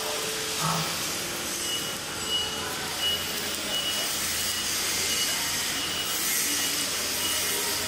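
Steady hiss and hum of workshop machinery, with a faint high tone that sounds in short dashes now and then.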